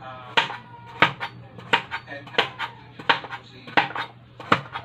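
Kitchen knife chopping squash into cubes on a plastic cutting board: sharp, even knocks of the blade hitting the board, about one every two-thirds of a second, seven in all.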